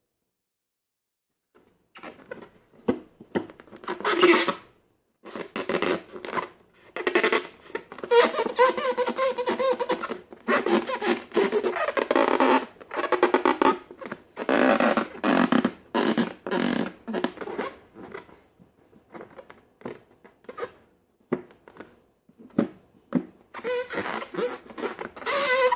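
Slime being squeezed and worked by hand, making wet, sticky squelching and crackling sounds in irregular bursts that begin about two seconds in.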